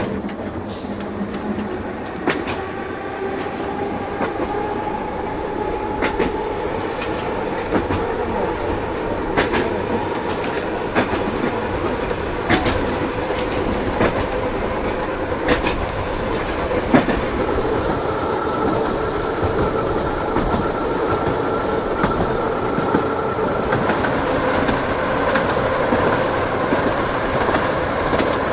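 Narrow-gauge electric tram running along the track, heard from its open top deck: a steady rumble with a faint motor whine that shifts in pitch, and the wheels clicking over rail joints every couple of seconds.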